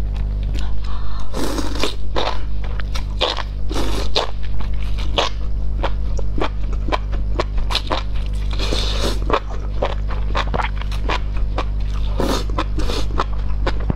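Close-miked eating of enoki mushrooms in spicy broth: long bunches slurped into the mouth a few times, with many crisp crunches and wet clicks of chewing in between.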